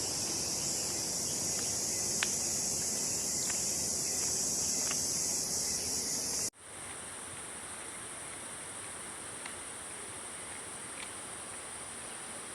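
A loud, steady high-pitched chorus of forest insects. About halfway through it cuts off abruptly and gives way to a fainter, thinner insect buzz.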